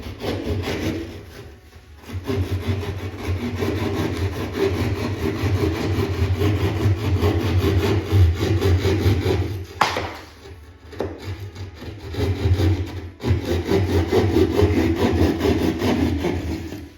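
Drywall saw cutting through ceiling drywall with back-and-forth strokes, stopping briefly a few times. There is a sharp snap about ten seconds in.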